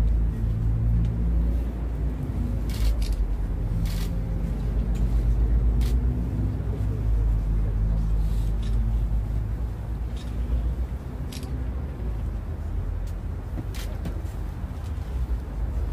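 Steady low rumble of road traffic, with scattered sharp clicks of press photographers' camera shutters every second or two.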